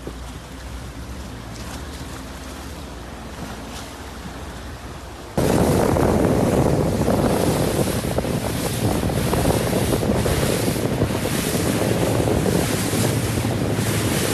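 Boat outboard motor running with water churning and sloshing around the hull. About five seconds in it jumps abruptly to much louder wind buffeting the microphone over the rush of water and motor noise of a fast-moving boat.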